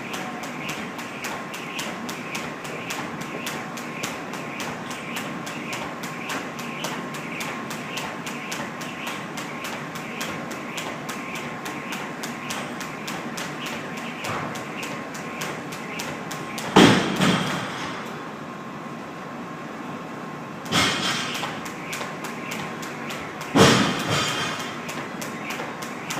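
Jump rope doing double-unders: the rope slaps the floor in a fast, steady rhythm, then stops about two-thirds of the way through. Three heavy thumps follow, a few seconds apart.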